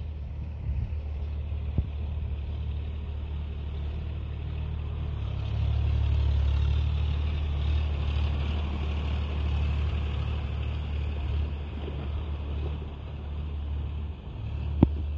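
Sonalika DI 42 RX tractor's diesel engine running steadily under load while tilling a wet field, a low rumble that grows louder about five seconds in as the tractor passes close, then eases off. A sharp knock sounds near the end.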